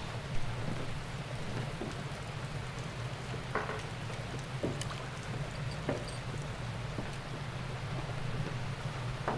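Steady rain over a low steady rumble, with a few faint knocks and one sharper knock about half a second in.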